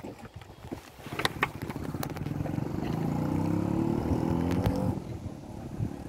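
A motor vehicle's engine running and accelerating, its pitch rising gradually from about two seconds in before it fades away near five seconds. A couple of sharp clicks sound just after a second in.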